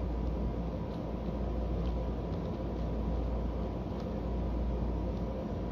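Steady low background hum, with a few faint scattered clicks of a Master Kilominx twisty puzzle being turned.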